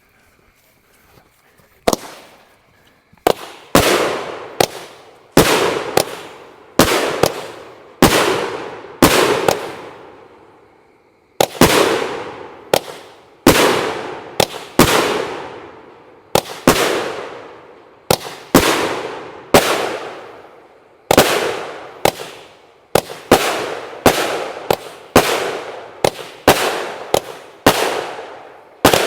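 Buck Fever salute cake firing: a rapid string of loud shots and bangs, about one or two a second, each ringing off in a long echo, starting about two seconds in, with a brief pause around a third of the way through.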